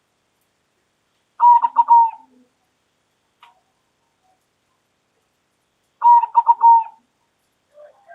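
Zebra dove (perkutut) cooing: two loud calls, each a quick run of several short notes lasting under a second, about four and a half seconds apart, with a fainter, lower call near the end.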